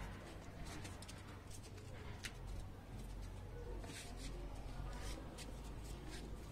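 Faint outdoor background: a steady low hum with scattered short, high-pitched chirps and clicks.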